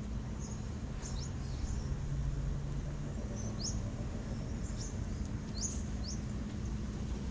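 Small birds chirping: short, high, quick calls scattered irregularly, some close together, over a steady low background rumble.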